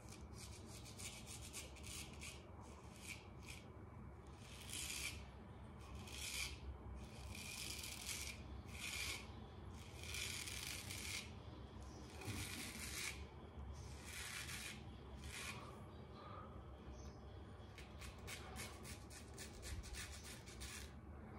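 Straight razor blade scraping through stubble under lather on a second pass. A series of separate scraping strokes, some short and some longer, with a quick run of short strokes near the end.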